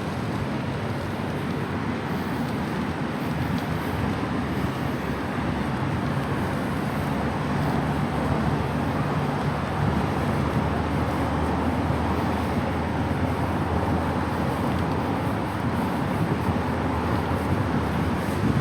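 Steady city traffic noise mixed with low wind rumble on the microphone of a camera riding along on a bicycle.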